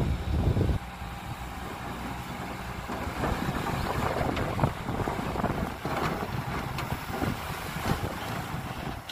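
Dump truck engine running with a steady low rumble that drops sharply in level about a second in, with scattered knocks and clatters through the rest.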